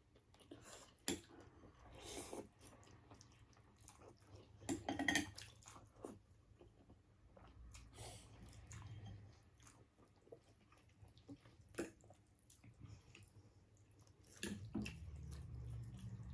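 Close-up eating sounds of chicken ramen soup: chewing and slurping, with scattered short clicks and bursts. A faint low hum comes in near the end.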